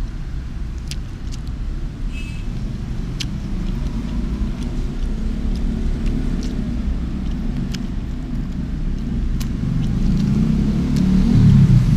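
Low rumble of passing road traffic that swells near the end as a vehicle goes by, with occasional sharp clicks of wooden chopsticks.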